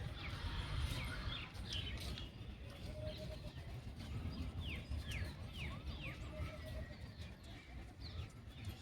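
Outdoor birdsong: small birds giving quick falling chirps, clustered around the middle, and a dove cooing in short low phrases that come back every few seconds, over a steady low rumble.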